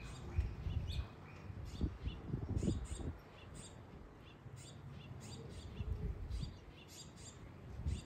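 Small songbirds chirping, short high chirps repeated in scattered clusters. Irregular low rumbles, loudest in the first three seconds, run underneath.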